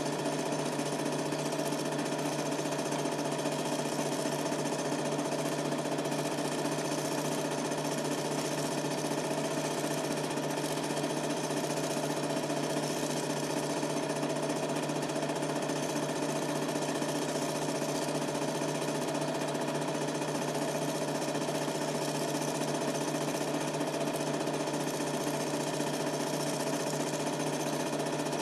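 Super 8 film projector running steadily: the constant, unchanging mechanical hum and whir of its film transport and fan, picked up by a camcorder's microphone in the room.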